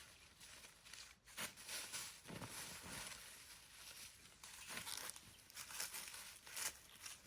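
Irregular rustling and crunching of dry plant matter, a quick series of short scrapes and crackles.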